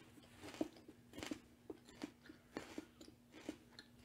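Faint crunches of a person chewing a bite of raw celery spread with sun butter and raisins, about two or three crisp crunches a second, over a faint steady hum.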